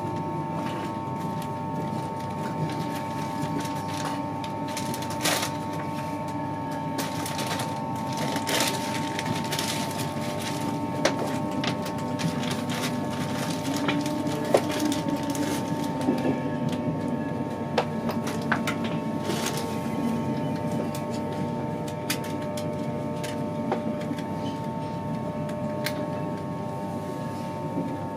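Interior running noise of an InterCity 225 passenger coach at speed: a steady rumble of wheels on rail with a constant whine, and irregular clicks and knocks from the track.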